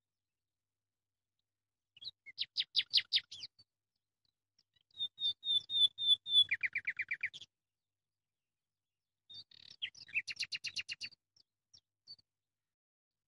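A songbird singing three short phrases of rapid repeated notes. The middle phrase begins with a run of higher notes and drops into a lower fast trill.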